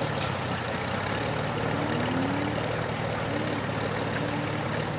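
Car engine running at low revs, a steady low rumble, with a few short rising whines from about two seconds in.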